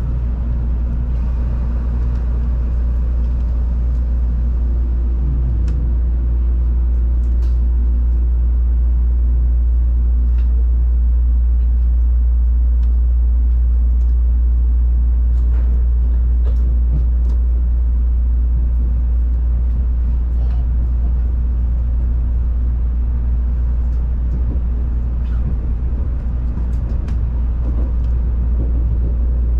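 Inside an N700-series Tokaido Shinkansen car pulling away from a station: a steady low rumble of the running train, growing slightly louder as it picks up speed. A few seconds in, a faint steady tone lasts several seconds, and there are occasional light clicks.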